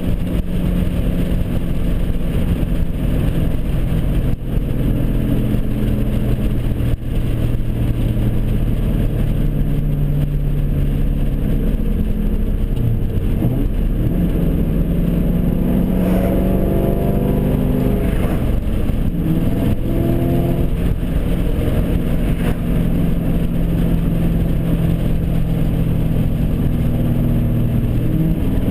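2002 Ford Mustang GT's 4.6-litre V8 running through long-tube headers and a straight-piped exhaust, heard from inside the cabin while driving. It holds a steady cruising drone, and around the middle the pitch drops and climbs again a few times as the driver shifts up through the gears and accelerates.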